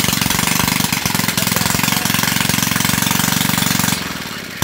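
Small petrol generator engine running loudly with a fast, rattly firing beat, then cutting out about four seconds in and winding down, followed by a sharp click.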